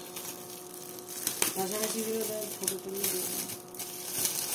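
Fruit being cut on a boti, the curved foot-held Bengali kitchen blade: a few sharp clicks of cutting over a steady hiss, with a faint voice in the background about halfway through.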